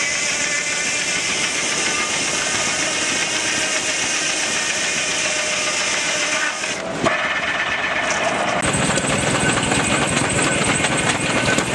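Circular sawmill blade cutting through a log, a loud, steady, high-pitched whine with the rattle of the mill. About eight seconds in it gives way to a steam traction engine running with a fast, even rhythm.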